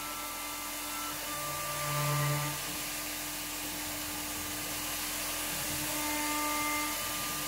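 CNC mill spindle running at 18,000 RPM, an 8 mm four-flute end mill taking a roughing cut in aluminium: a steady high-speed hum and whine over a constant hiss. A lower hum swells briefly about a second and a half in.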